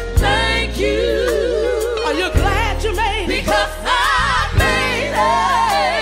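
Gospel song: sung vocals with strong vibrato and choir harmonies over a bass line and drums.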